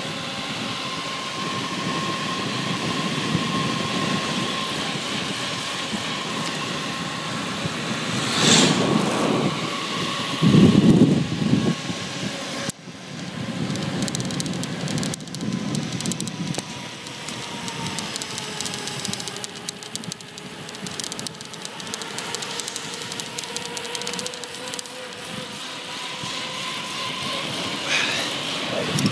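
Wind rushing over the microphone and wheels rolling on asphalt during a fast downhill descent, with a faint steady whine. Heavier wind buffets hit twice around a third of the way in and again at the end.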